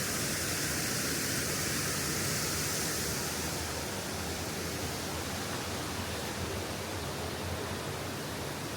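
Steady rush of a waterfall cascading through a rocky gorge. The hiss eases slightly after about three seconds.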